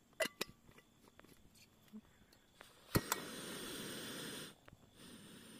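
Portable butane canister stove being lit under a pot of water: two sharp clicks about three seconds in, then the gas hissing steadily for about a second and a half before it drops to a faint hiss.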